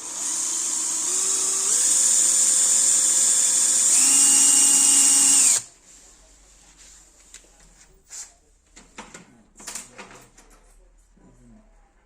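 Electric power drill running, its motor speeding up in steps, then stopping abruptly about five and a half seconds in. Light clicks and knocks follow.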